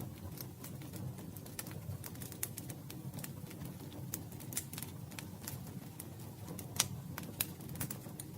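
Campfire burning: a low steady rumble of flames under frequent, irregular sharp crackles and pops, the loudest pop about two thirds of the way in.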